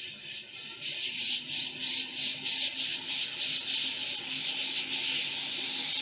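Hot air rework station with a small nozzle blowing onto a circuit board, a steady hiss that builds up over the first second, with a faint steady hum underneath. The board is being heated around a USB-C charging port.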